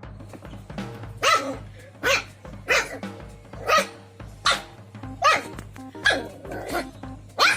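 Samoyed puppy barking repeatedly, about eight short barks spaced a little under a second apart, over background music with a steady beat.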